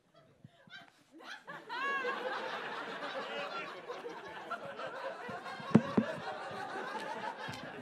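Audience laughing, rising about a second and a half in after a brief hush and carrying on steadily. Two short thumps about six seconds in.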